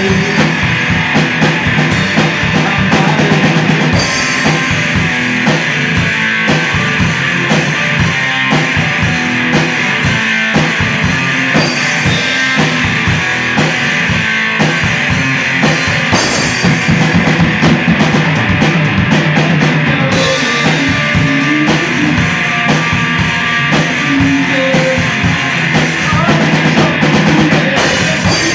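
Live rock band playing loud and steady: drum kit, electric guitar and bass, with no singing.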